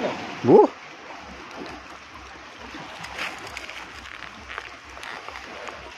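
Sea water washing and lapping at the shoreline, a steady wash. About half a second in, a short rising vocal cry stands out as the loudest sound.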